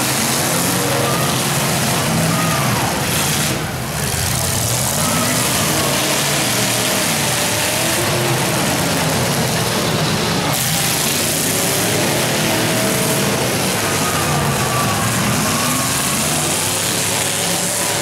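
Several full-sized demolition derby cars' engines running hard and revving together, their pitch rising and falling over one another.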